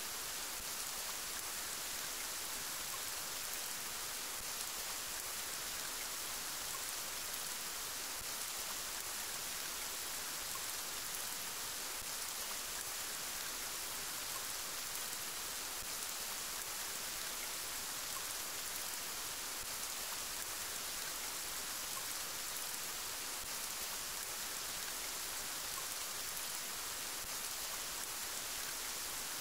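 Steady rain: an even hiss of many drops, heaviest in the high end, with no change in strength.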